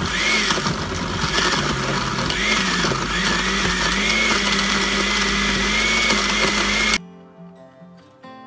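Countertop blender running at speed, puréeing a lettuce, apple, date and soy milk smoothie. Its motor whine dips in pitch a few times as it takes the load, then holds steady once the mix is smooth, and it stops abruptly near the end.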